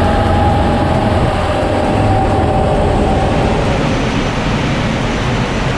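Audi A6 estate running on a chassis dynamometer, its driven wheels spinning the rollers with a steady mechanical rumble. A whine over the rumble fades about three seconds in.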